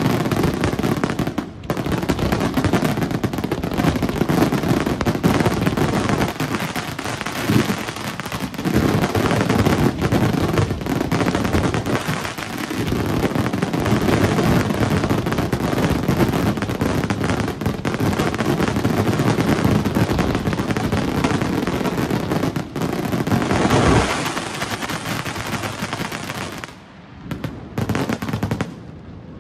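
Aerial fireworks shells going off in a dense, continuous barrage of rapid bangs and crackling. About three-quarters of the way through, one loud burst comes, then the barrage thins out, with a few last bangs near the end as it dies away.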